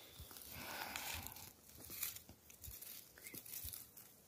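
Faint rustling and crackling with a few small snaps, as the forest floor is disturbed while mushrooms are picked.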